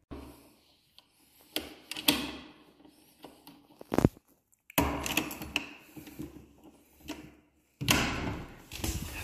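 Keys jangling and a key working in a door lock below a metal door knob: an irregular run of rattles and sharp clicks, the loudest about four seconds in.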